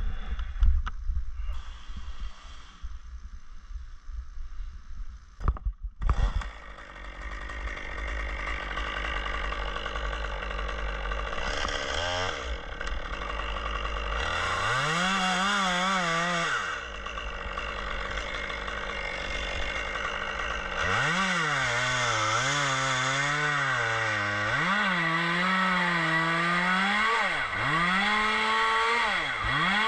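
Chainsaw engine starting about six seconds in and running steadily, then revved repeatedly, its pitch swinging up and down again and again in the second half. Before it starts there are scattered knocks and handling noises.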